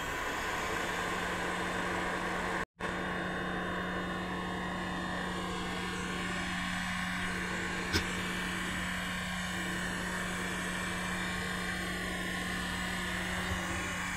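Hot-air rework gun blowing steadily to heat-cure UV-hardening conformal coating: a steady airy rush with a constant hum. The sound cuts out for an instant about three seconds in, and there is a single click about eight seconds in.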